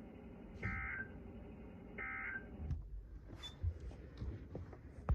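NOAA Weather Radio SAME end-of-message data bursts: two short, raspy electronic warbles about a second and a half apart, the last of the three that close a broadcast message. Faint clicks and rustling follow for a couple of seconds.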